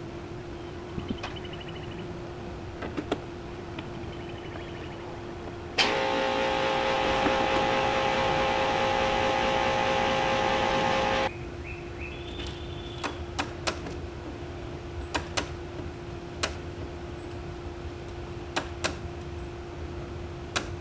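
Power drill running steadily at full speed for about five seconds, then stopping suddenly, followed by a scatter of sharp clicks and taps of metal and hand work.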